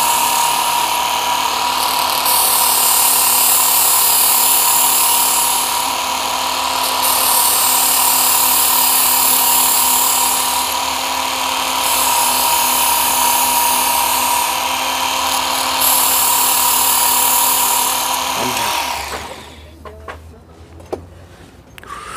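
Work Sharp Ken Onion Edition electric belt knife sharpener running with a steady whine while a knife is sharpened on it. The grinding hiss swells and drops about every four seconds as the blade is drawn across the belt, and the motor shuts off near the end.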